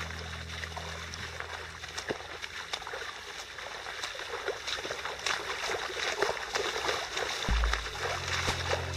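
Several hikers' boots splashing as they wade through shallow water over tidal mudflats, a quick irregular run of splashes from many steps. A low rumble comes in near the end.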